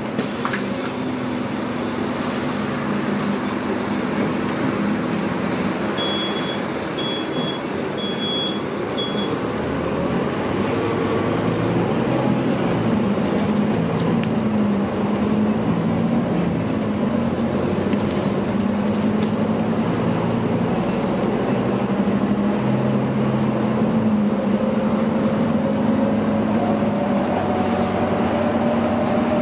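Scania K310UB city bus heard from inside the passenger cabin: the rear-mounted five-cylinder diesel engine and drivetrain drone as the bus drives, the pitch rising as it accelerates about a third of the way in and again near the end. A run of five short high beeps comes about six seconds in.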